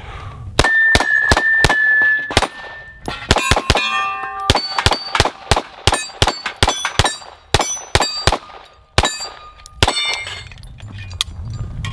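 Atlas Gunworks Erebus 2011 pistol with a single-port compensator fired in quick strings of shots, with steel plates and poppers clanging and ringing as they are hit.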